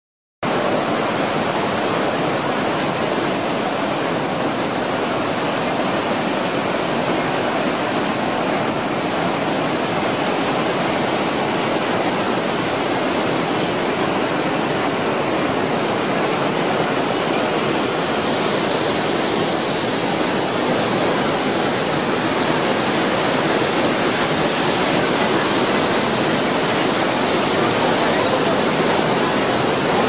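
Iguazu Falls, huge volumes of water plunging, making a steady, unbroken roar.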